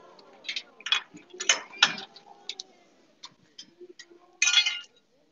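Metallic clinks and rattles from the steel bars of a bear cage and its feeding contraption as a Hokkaido brown bear (Ezo brown bear) climbs them. There is a quick run of clinks in the first two seconds, a few light ticks after that, and a longer, louder rattle near the end.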